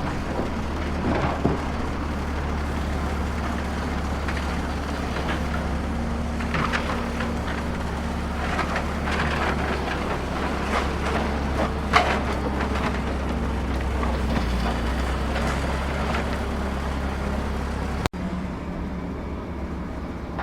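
Steady low engine drone from RC construction machinery, with scattered knocks and clatter of dirt and stones; the loudest knock comes about halfway through. The sound cuts off suddenly near the end and a different, quieter mix follows.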